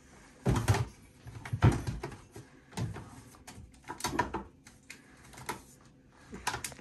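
Containers knocking and scraping against each other and a kitchen cupboard shelf as an item is pushed into a tightly packed cabinet: about half a dozen separate bumps and clunks.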